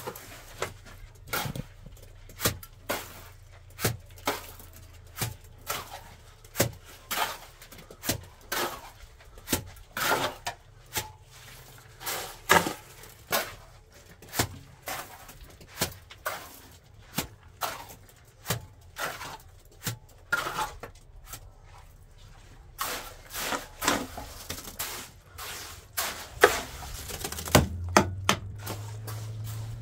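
Hand tools knocking and scraping in masonry work with cement, about one or two strokes a second at an uneven pace, over a faint steady low hum.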